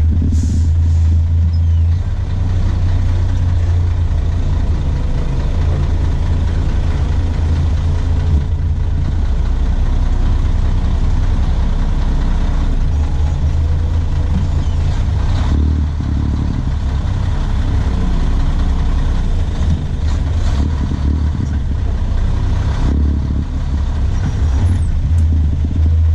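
Nissan Diesel PF6TB engine of a Tadano GT550E truck crane, heard from inside the cab as the crane is driven along the road: a loud, steady low diesel drone whose note shifts a few times.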